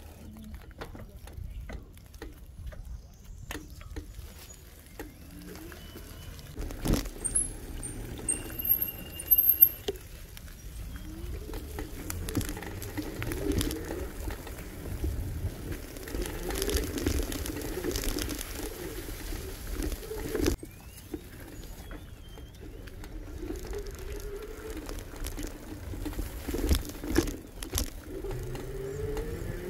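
E-bike ride along a trail: steady low rumble of tyres and wind on the microphone, scattered clicks and knocks, and a low whine that rises and falls now and then.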